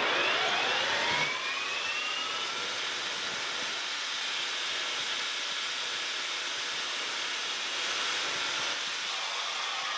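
Metal lathe with a variable-frequency-drive motor spinning up to 2000 RPM: a whine rising in pitch over the first two seconds or so, then steady running with a hiss while a carbide insert turns an aluminium bar. Near the end the whine begins to fall.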